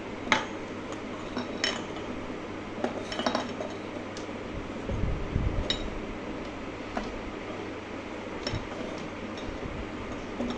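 Clear glass incandescent light bulbs clinking and tapping as one is pushed into its plastic lampholder and the bulbs and holders are handled on a wooden board: a string of separate sharp clicks, with a low thud about five seconds in.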